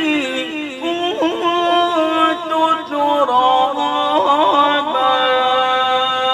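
A male Quran reciter's voice in melodic mujawwad-style recitation, drawing a phrase out in long melismatic runs with quick ornamental trills, then settling into a long held note about five seconds in.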